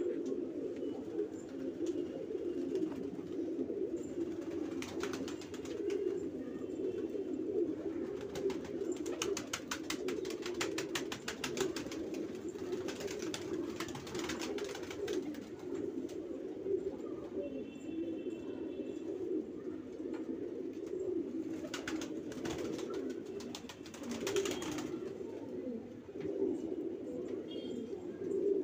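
A loft of Banarasi pigeons cooing, a continuous low chorus of overlapping coos, with a few short runs of rapid clicking or rustling.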